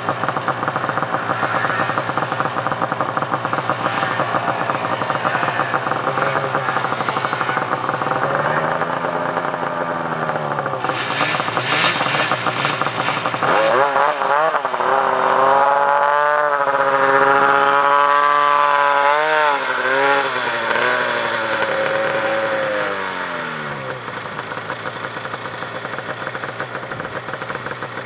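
Snowmobile engines running close by, with a brief rev about eight seconds in. Then a long full-throttle run begins at about fourteen seconds, its pitch rising and wavering as the sled climbs a snowy hill. About ten seconds later it drops back to a lower, steady running sound.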